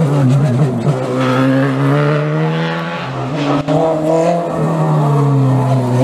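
Open-wheel single-seater race car engines at full throttle through a bend. The engine pitch climbs as the car accelerates, breaks sharply at a gear change about three and a half seconds in, then climbs again as the next car comes through.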